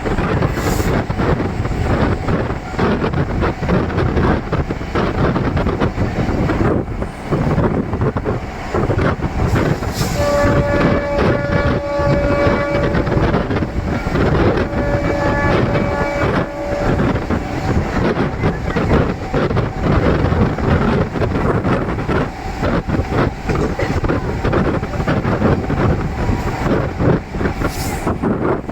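DEMU express train running along the track, heard from on board: a loud, steady rumble and clatter of wheels on rails. A train horn sounds twice, each blast a couple of seconds long, about a third of the way in.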